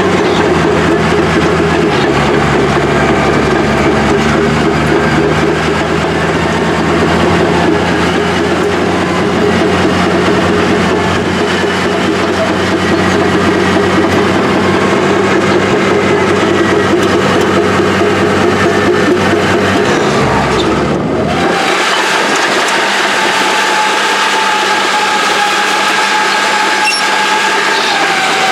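Engine of old Caterpillar heavy equipment running steadily. About 21 seconds in the sound changes abruptly to an engine note that rises in pitch, holds, then falls away near the end.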